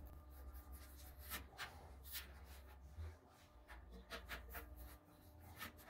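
Faint, irregular scraping and small clicks of a plastic pry tool being worked under a stamped-tin tank emblem, tearing through its thick, dense foam adhesive.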